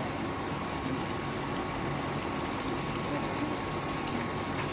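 Spring rolls deep-frying in hot oil: a steady sizzle with small crackles and pops as the oil bubbles around them. A faint steady hum runs underneath.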